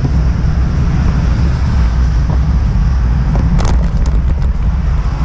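Strong wind buffeting the microphone as a loud, steady low rumble, with a few short clicks about three and a half seconds in.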